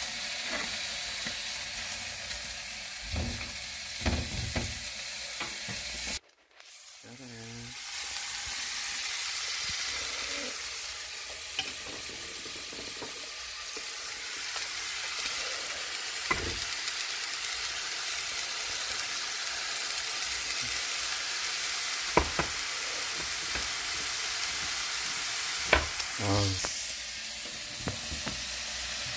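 Slices of meat sizzling as they fry in a nonstick frying pan: a steady frying hiss that drops out briefly about six seconds in, with a few scattered clicks and knocks, the loudest near the end.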